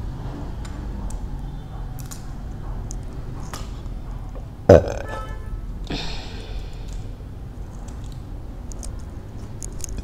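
A person burps once, short and loud with a sharply falling pitch, about halfway through. It sits among small clicks and cracks of crab shell being pulled apart by hand, and a brief hissing rush follows about a second later.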